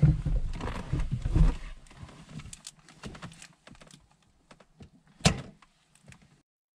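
Hands working a small retainer clip onto the shift linkage of a VW GTI mk4's shifter assembly: dull knocks and rustling in the first second and a half, then scattered small clicks, with one sharp click about five seconds in. The sound cuts off suddenly near the end.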